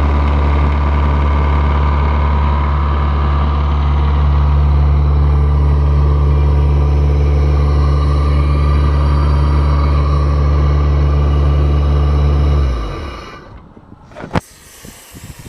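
Diesel engine of an Airman PDS 185S portable screw air compressor running steadily, then shut down about 13 seconds in, winding down and stopping within about half a second. A single sharp click follows a second or so later.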